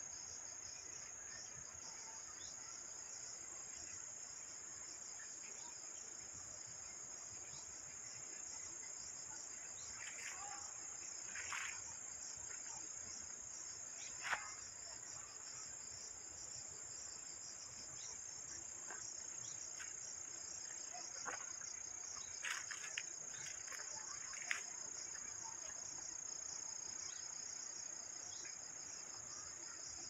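Crickets and other insects singing in a steady, high-pitched chorus with a fast pulse. A few short sharp snaps or ticks stand out over it, the loudest about halfway through and again near the end of the second half.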